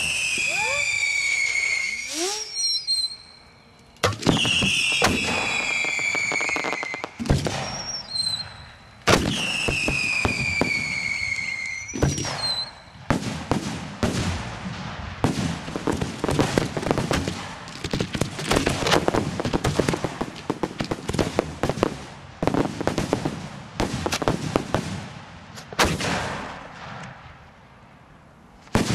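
Large-calibre 7- and 8-inch aerial firework shells heard close up. In the first dozen seconds come three sharp bangs, each followed by a whistle falling in pitch for about two seconds. After that, a long run of dense, rapid crackling thins out near the end.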